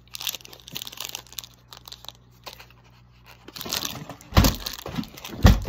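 Plastic wrapper of a Reese's peanut butter pumpkin crinkling and tearing as it is pulled open by hand, with two dull thumps near the end.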